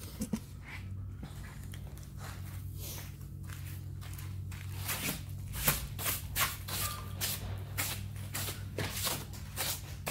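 Stiff hand brush sweeping sawdust off a freshly sawn slab in quick strokes, about two a second, louder from about five seconds in, over a low steady hum.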